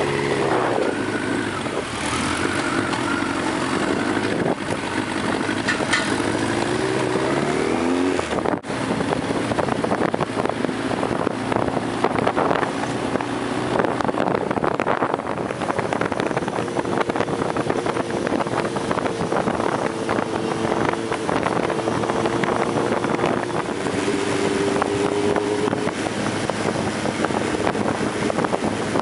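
Motorcycle engines heard from a moving motorcycle: the engine note rises as the bikes pull away, then after an abrupt break settles into a steady cruising tone under constant wind noise on the microphone.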